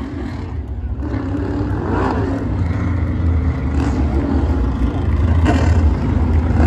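Asphalt modified race cars' engines running on the oval, with a rise and fall in pitch about two seconds in, growing louder near the end.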